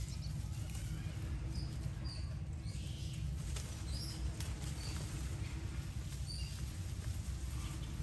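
Outdoor ambience: a steady low rumble with about five short, high chirps scattered through it and faint pattering in dry leaves.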